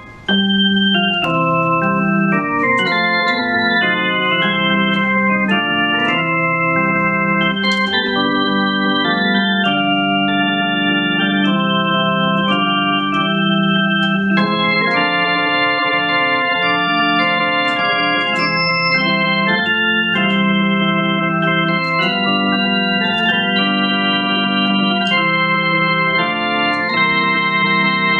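Electronic keyboard played with an organ voice: a slow hymn in held, sustained chords that change every second or so.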